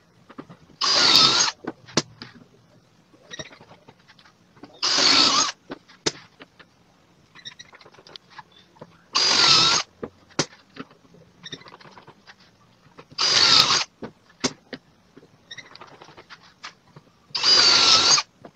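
Cordless drill boring pocket holes through a pocket-hole jig into 15 mm melamine board: five short bursts of drilling, each under a second and about four seconds apart, with small clicks and knocks between as the jig is moved.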